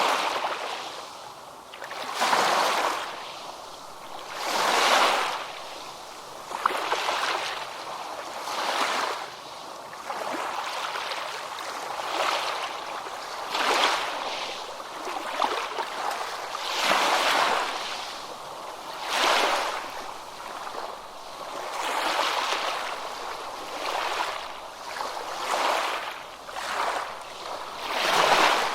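Ocean surf on a beach: small waves breaking and washing up the shore, a swell of rushing water every two seconds or so.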